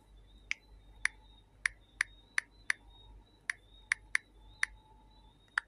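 Typing on a smartphone's on-screen keyboard: about a dozen short, sharp key-tap clicks at an uneven pace, with a pause near the middle.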